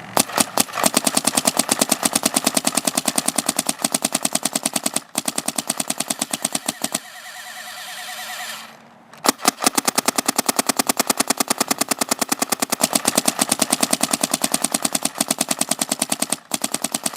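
Proto PMR (Matrix Rail) paintball marker with a TechT bolt firing in rapid strings, about a dozen shots a second, ripping through the rest of the paint. About seven seconds in the firing stops for roughly two seconds, with a rising hiss, then resumes.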